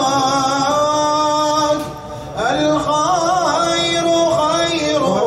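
A man singing a slow, chant-like melody with long held notes that waver and glide. There is a short break between phrases about two seconds in.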